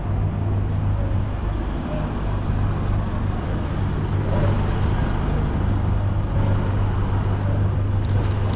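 Volvo coach's diesel engine idling: a steady low hum.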